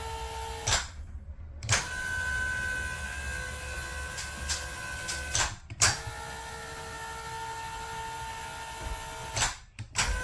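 Happy Jack electric bed lift's motor and chain drive running with a steady whine, stopping and starting three times with a click at each stop as the bed changes direction. No banging or clanging from the chain, which is now held up by wood blocks.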